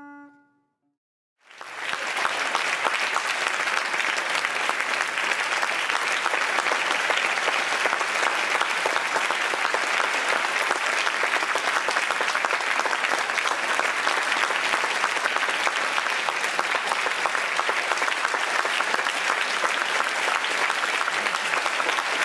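A brief silence, then applause starts about a second and a half in and carries on steadily: a full theatre audience clapping at a curtain call.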